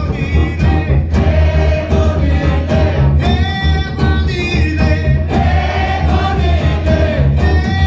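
Live rock band playing: sung vocals, with two voices together at times, over electric guitar, electric bass and drums with a heavy bass.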